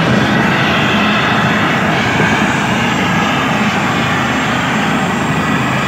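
Light helicopter running on the ground with its rotor turning: a loud, steady rushing drone of turbine and rotor.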